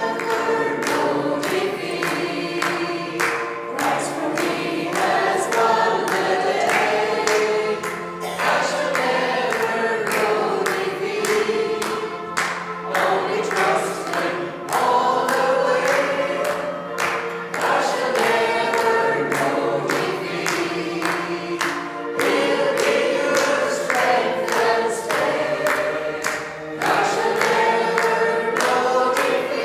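A congregation and a small group of women singers sing an upbeat gospel hymn together, with hands clapping in time to the beat. An electric keyboard accompanies them, holding a steady low note.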